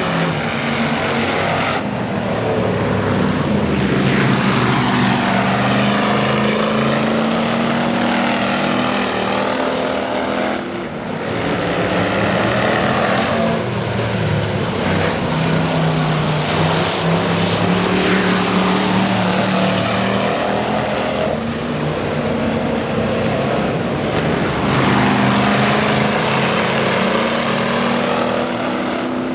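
Cruiser-class race cars running laps on an oval track, engines at speed. The engine notes rise and fall as the cars pass and lift for the corners, with a brief lull about eleven seconds in.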